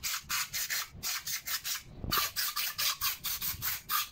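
Rhythmic rubbing or scraping, about five strokes a second, with short breaks about one and two seconds in, as a motorcycle cylinder head is worked over by hand.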